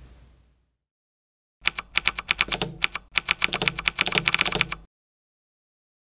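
Fast typing on a computer keyboard: a quick run of key clicks lasting about three seconds, with a brief pause about three seconds in, starting and stopping abruptly.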